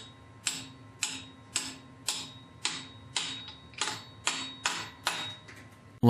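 Hammer tapping on a socket held over a washer motor shaft: about ten light, evenly spaced taps, roughly two a second, driving a new plastic motor coupler piece down until it sits flush on the Whirlpool washer's motor shaft.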